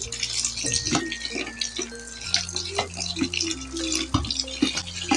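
Water being poured a little at a time into a bucket of soap base, splashing and trickling, with scattered short knocks.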